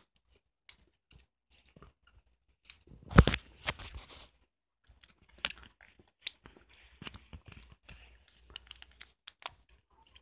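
Close-up eating sounds of a person eating spoonable yogurt from a plastic cup: scattered small clicks and wet mouth sounds, with a louder clatter about three seconds in.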